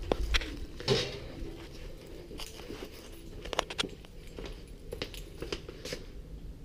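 Footsteps with scattered light clicks and knocks at irregular times, the loudest about a second in.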